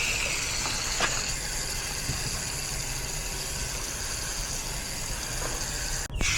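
Steady hiss of water spraying from a hose, rinsing a dirty air-conditioner condenser coil.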